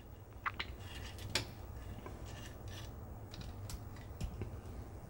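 A few faint, short clicks and rubbing sounds of hands handling equipment, over a low steady hum.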